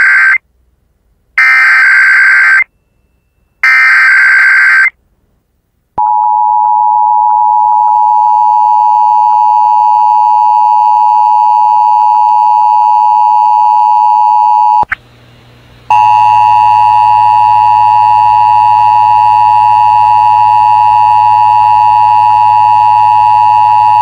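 Emergency Alert System test tones. First come three screeching bursts of SAME header data about a second long each. Then the steady two-tone attention signal sounds for about nine seconds, breaks off for a second, and comes back rougher with a low hum under it until near the end.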